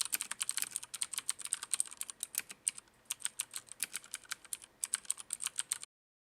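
Typing on a Filco Majestouch Minila mechanical keyboard with Cherry MX switches: a quick, uneven run of key clicks that stops near the end.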